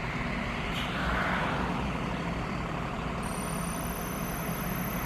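Steady low rumble of an idling vehicle engine, with a thin high whine that comes in about three seconds in.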